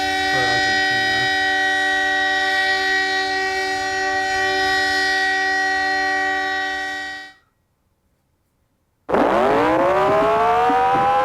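Emergency alert alarm: a loud, steady chord of several held tones that cuts off suddenly about seven seconds in. After a short silence a siren winds up, rising in pitch and levelling off.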